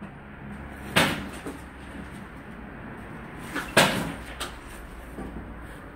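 Two sharp metal knocks about three seconds apart, with a few lighter taps between: a steel drift or rod struck against the rusted hub of an Opel Corsa brake drum during hub removal.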